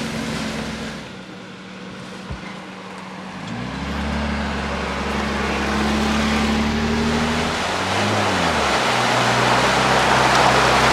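Jeep Wrangler's engine pulling along a dirt trail, rising as it accelerates a few seconds in, dipping briefly about eight seconds in and picking up again. Tyres splash through a muddy puddle near the end.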